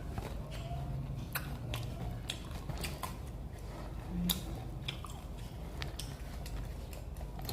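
Close-miked chewing of crispy fried vegetable fritters (bakwan), with irregular crisp crunches and clicks of biting and mouth sounds.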